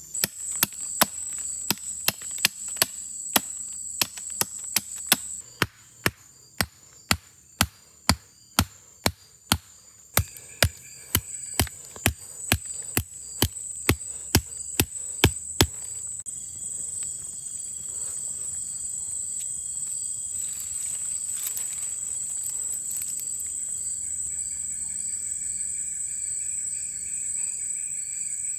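Rapid, evenly spaced sharp knocks of a hand tool striking wood, about two and a half a second, stopping about sixteen seconds in, over a steady high insect whine. A steady hiss then follows, with a lower insect trill near the end.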